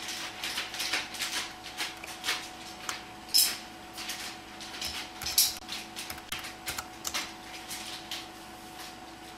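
Computer keyboard keys clicking in an irregular patter, typed one-handed. The typing stops near the end, over a faint steady hum.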